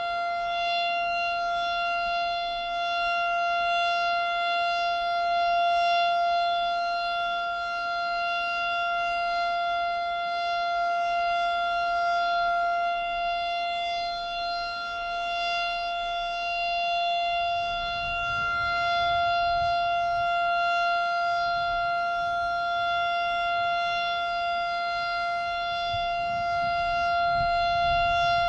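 Outdoor tornado warning siren sounding one steady, unwavering tone whose loudness swells and fades slowly. A low rumble joins about two-thirds of the way through.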